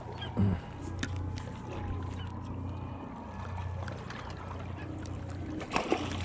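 A spinning reel being cranked as a hooked fish is reeled in, with short clicks and knocks over a steady low hum; the loudest knock comes about half a second in.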